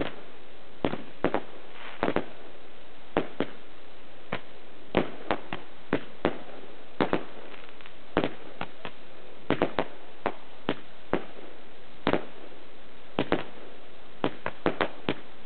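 Fireworks going off: a steady stream of sharp, irregular bangs, about two a second, often two or three in quick succession.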